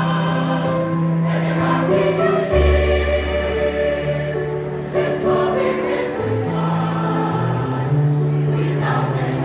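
Choir singing: long held chords that change in steps, over a deep bass line.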